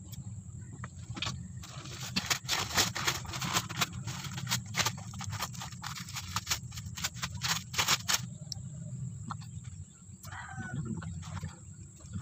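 Paper and plastic packing material being torn and crinkled by hand: a dense run of crackles and rips for several seconds, over a steady low hum. A chicken calls briefly near the end.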